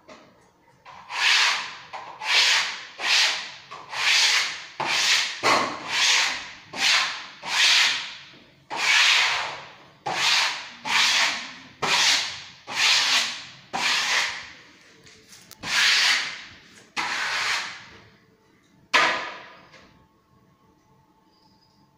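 Wallpaper being smoothed onto a wall by hand: repeated rubbing strokes across the paper, about one a second, each a swelling hiss that fades, stopping a couple of seconds before the end.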